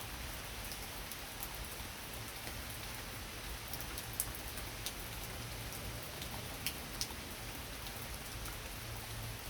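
Heavy rain pouring steadily: an even hiss with scattered sharp drips and taps close by, a few louder ones in the middle.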